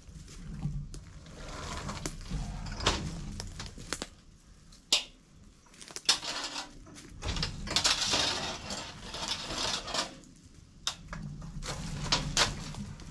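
Handling noise as a Moultrie All-in-One hog feeder is lifted by hand to be hung: repeated knocks and clanks against the feeder, mixed with rustling and a low rumble.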